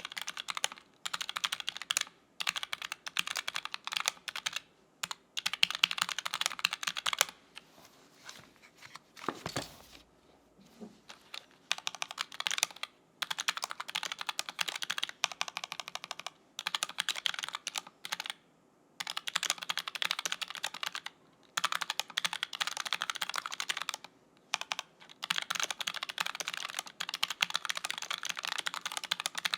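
Typing on a Keychron K3 Retro low-profile mechanical keyboard with Gateron low-profile KS-27 switches: fast runs of key clicks with short pauses, and a sparser stretch of scattered keystrokes a little before the middle.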